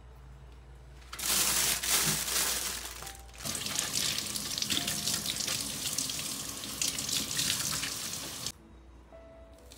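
Kitchen faucet running into a stainless steel sink, the stream splashing over a bunch of spring onions being rinsed under it. The water starts about a second in, breaks off briefly near three seconds, then runs again and stops abruptly about a second before the end.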